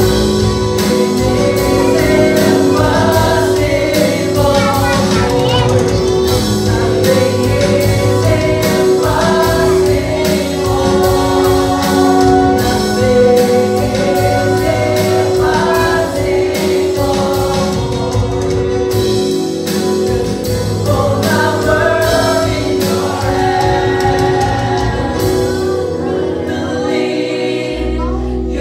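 Live church worship band and singers performing a worship song: group voices singing together over the band, with a steady beat.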